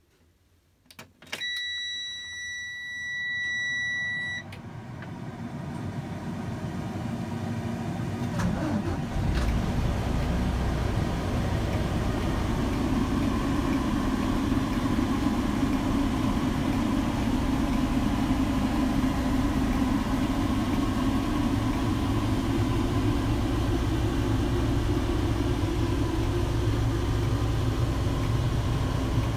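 Cab of a 2010 Freightliner diesel truck: a few clicks, then a steady electronic warning tone for about three seconds as the key is switched on. A hum then rises, and about nine seconds in the diesel engine fires and settles into a steady low idle.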